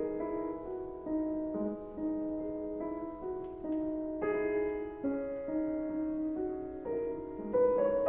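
Solo piano music, one note or chord after another at an unhurried pace, about every half second.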